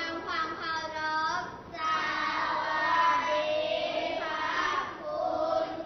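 A class of young schoolchildren chanting a greeting in unison, in drawn-out, sing-song voices.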